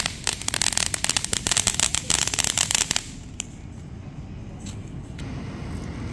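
Fireworks crackling: a fast run of sharp pops, many a second, that stops abruptly about three seconds in. A few single pops follow.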